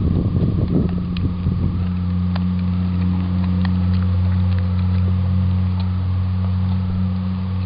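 A dog crunching and chewing raw quail with its bones, which stops about two seconds in. A steady low engine hum lies under it, with a few faint clicks later on.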